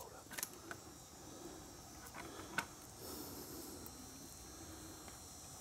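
Faint sounds of feral hogs rooting and feeding in the undergrowth: low rustling with a couple of sharp cracks, over a steady high insect hum.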